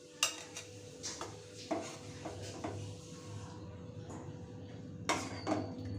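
Scattered clinks and knocks of kitchen utensils and dishes, such as a spoon against a pan or serving plate, with a louder pair of knocks near the end, over a faint steady hum.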